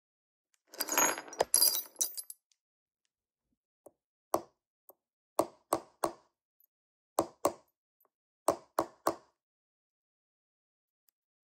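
Light hammer taps of a round steel hammer head on a stainless steel Tag Heuer Kirium bracelet clasp cover: nine sharp taps in short groups of two or three, straightening the clasp that had been squeezed out of shape. Before the taps, about a second and a half of clinking and rustling as the metal part is handled.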